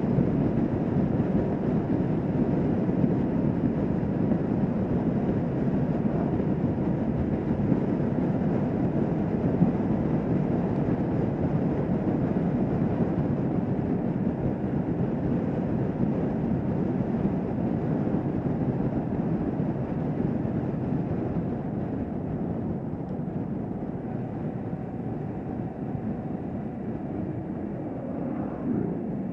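Kawasaki Vulcan S 650's parallel-twin engine running steadily at highway cruising speed, with road and wind noise. It gets gradually quieter over the second half as the bike eases off.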